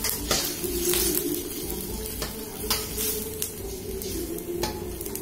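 Water poured into a hot steel wok of stir-fried chicken, sizzling, with a spatula scraping and knocking against the wok as it is stirred, several sharp clicks spread through.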